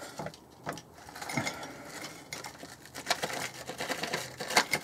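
Foil-laminate MRE cracker pouch crinkling as it is torn open. From about three seconds in, the broken crackers spill out onto a ceramic plate in a quick run of small clicks and clatters.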